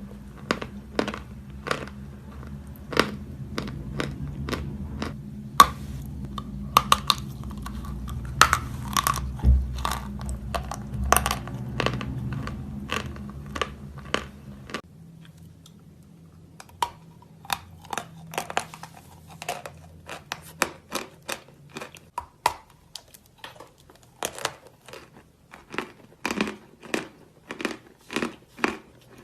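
Close-up crunching and chewing of soft natural edible chalk («Белая Гора»), a rapid series of sharp crunches. A low background hum stops about halfway through, and from then on the crunches come at a steady pace of about two a second.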